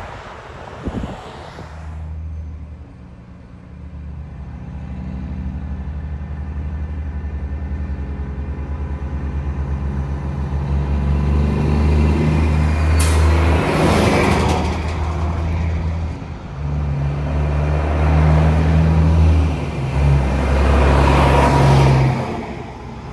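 Wind buffets the microphone for about two seconds. Then a semi truck's diesel engine comes up close and gets steadily louder, with a brief sharp hiss about 13 seconds in. After that the engine keeps pulling hard, with its note breaking off briefly a few times as the truck shifts gears.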